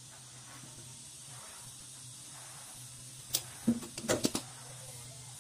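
Hand tools clicking and knocking on the valve adjuster of a Honda TMX 125 engine while the intake valve clearance is set: a quick cluster of about five sharp clicks a little over halfway in, over a faint steady hum.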